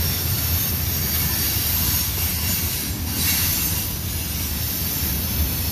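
Train rolling past, a steady rumble of wheels on the rails.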